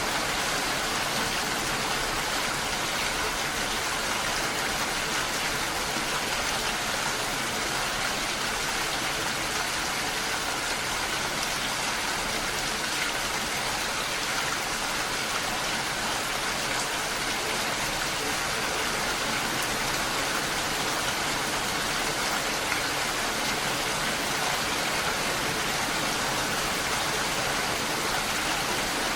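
Steady rainfall, an even hiss of many drops with no pauses and no single loud events.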